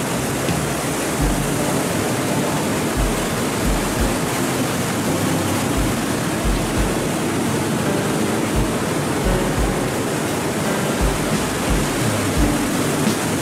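Ocean surf breaking and washing up onto a rocky shore: a steady rushing hiss of white water, with low thuds recurring underneath.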